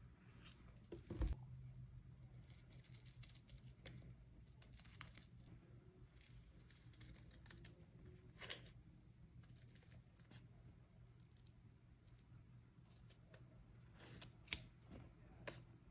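Scissors snipping through 1 mm Black Cat foam grip tape: quiet, with a sharp snip about halfway through and several more in quick succession near the end, over a faint steady hum. A single knock about a second in.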